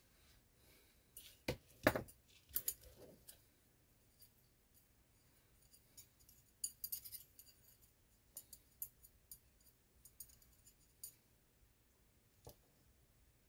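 Titanium square chopsticks clicking and knocking: a few sharper knocks about one and a half to two seconds in, then runs of light metallic clicks as the tips tap together.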